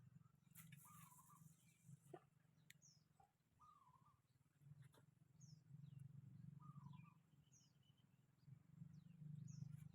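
Faint birdsong: one bird repeats a short warbled call every two to three seconds, and other birds give thin high chirps, over a low steady hum.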